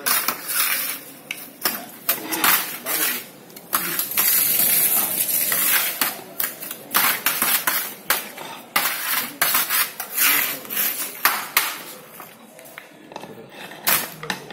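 Hand trowels scraping and clinking against a metal tray while wet mortar is mixed by hand: irregular scrapes and knocks, with one longer scrape about four seconds in.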